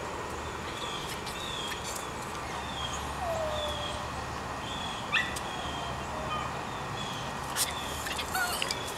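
Outdoor background with a bird chirping over and over, short high chirps about twice a second, and one brief falling howl from a distant dog about three seconds in.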